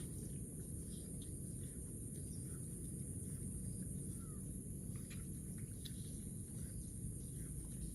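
Outdoor rural ambience: a steady low rumble with scattered short bird chirps and ticks, and a steady high hiss.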